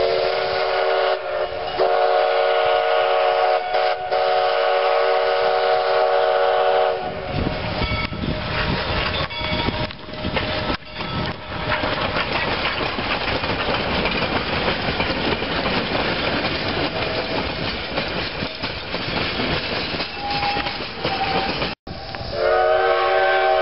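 Steam locomotive whistle sounding a long chord-like blast, broken once near the start, for about seven seconds. Then the engine and its cars roll close past with a dense clatter of running gear and wheels on rail. Near the end the whistle sounds again.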